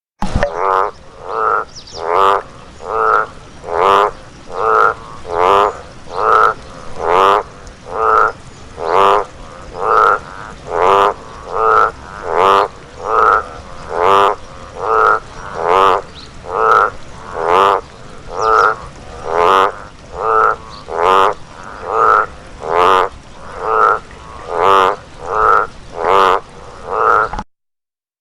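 A frog croaking over and over in a steady rhythm, a little more than one call a second. Each croak is a short, rattling, pulsed call. The calls stop abruptly near the end.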